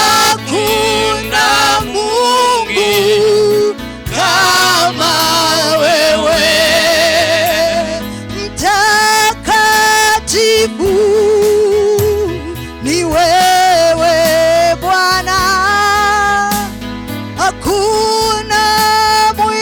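Gospel worship song: a singer holding long notes with a wavering vibrato over a steady bass accompaniment.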